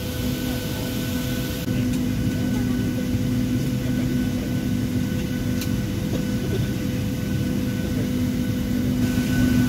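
Steady hum of a Boeing 737-700's cabin air system with the aircraft parked at the gate and the engines not yet running: a low rumble carrying a few steady tones.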